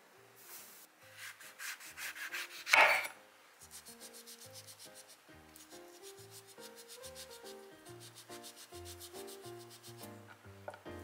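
Chef's knife cutting the thick peel off a large yellow citrus fruit on a wooden cutting board: quick runs of short strokes, the loudest a little under three seconds in, with soft background music beneath.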